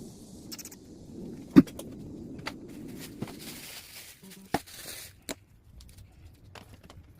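Small plastic clicks and knocks from a car-alarm remote being handled during repair, with one sharp click about a second and a half in and a short hiss in the middle.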